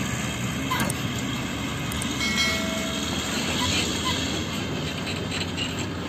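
Ashok Leyland tipper lorry's diesel engine running as it drives off over a rough dirt track, a steady rumble with road noise.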